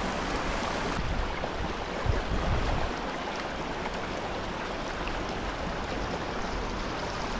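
Steady rush of a shallow creek's flowing water running over rocks, with a few faint low thuds in the first three seconds.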